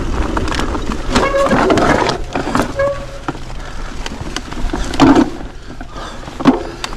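Mountain bike rolling over rocky, loose-stone single track: tyres crunching on stones with a rattle of clicks and knocks from the bike, the heaviest knocks about five seconds in and again a second and a half later.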